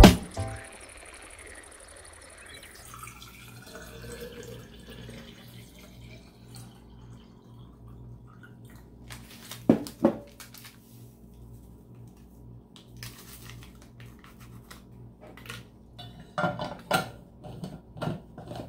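Water poured into a metal insulated water bottle, with two sharp knocks about halfway through and a run of clicks and knocks near the end as the bottle's plastic lid is screwed on.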